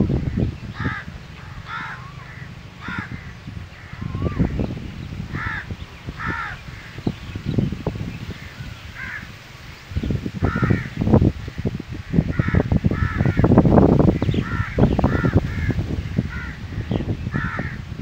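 Crows cawing over and over, with wind gusting on the microphone in low rumbling buffets that are strongest about two-thirds of the way through.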